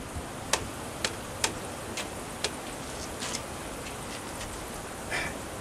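A series of short, sharp, light clicks, about half a second apart, over a steady faint hiss.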